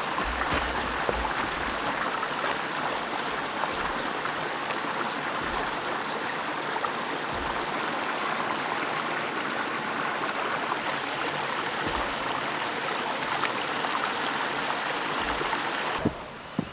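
A small forest stream running over rocks, water splashing down a low step in a steady rushing. It drops away suddenly near the end.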